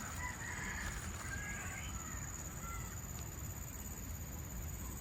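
Faint birds calling, with a few short chirps and a rising note in the first couple of seconds, over a steady high-pitched insect drone.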